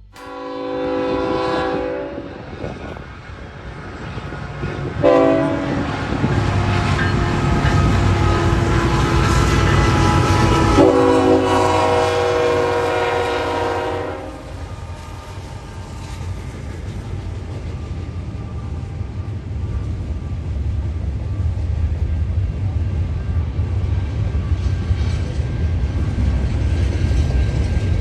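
Train air horn sounding a chord in three blasts, the middle one long, over the train's approach. The horn then stops and the train passes with a steady low drone.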